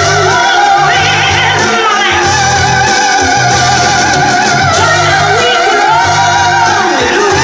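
Loud live music: a high melody line with heavy vibrato and sliding pitch held over a pulsing bass that repeats in short phrases.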